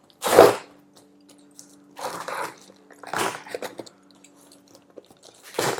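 Cardboard shipping box being cut open with a key: a few short bursts of scraping, tape tearing and cardboard crunching, the loudest near the start.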